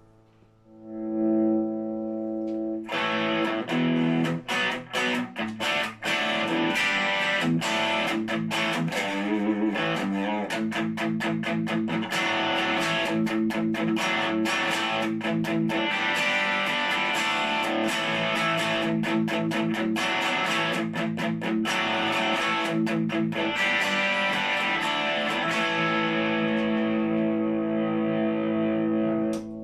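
Orville by Gibson Les Paul electric guitar with '57 Classic humbuckers played through a small Boss Katana amp with distortion. A chord rings out about a second in, then from about three seconds in riffs and chords are played without pause, with short chopped stops between phrases.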